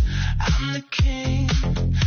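Background music: an electronic dance-pop track with a steady beat and heavy bass.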